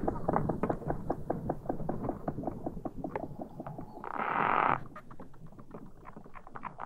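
Vibrational courtship signals of two-marked treehoppers, picked up through a plant stem and played back over speakers: a rapid train of clicks that slowly thins out, broken by a short buzz about four seconds in.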